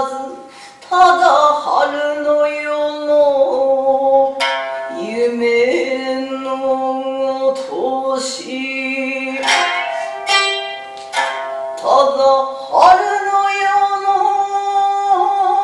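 Biwa plucked with sharp plectrum strikes beneath a woman's long, drawn-out sung narration, holding and bending sustained notes in the style of Japanese biwa balladry.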